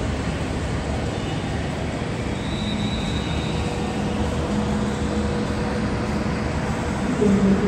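Jet airliner engines running with a steady roar, a faint high whine coming in briefly around the middle.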